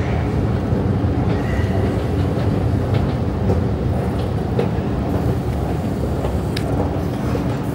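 Escalator running while being ridden upward: a steady low rumble from the moving steps and drive, with a few light clicks through it.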